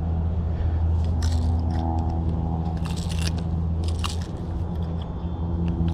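Metal fishing pliers clicking and scraping against a jerkbait's treble hooks in a caught peacock bass's mouth as the hooks are worked free, in a few short bursts over a steady low rumble.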